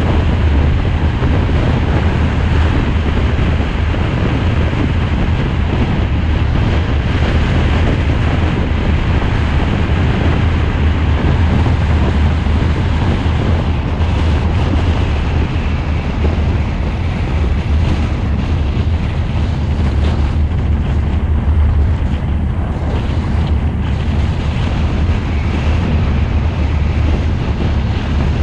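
Steady wind rush buffeting the microphone of a camera mounted on a moving car, over a constant deep rumble from the car's engine and tyres on asphalt.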